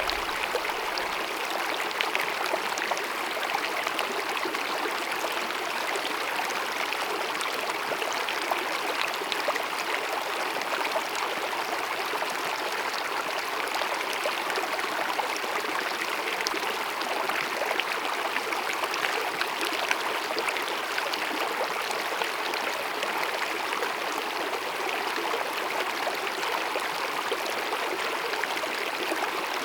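A small mountain stream babbling and gurgling steadily over rocks, a continuous rush of running water with many small splashes.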